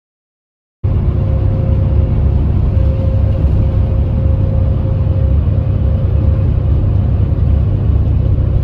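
Cabin noise of a moving intercity bus, heard from inside: a steady low engine and road rumble that starts abruptly about a second in.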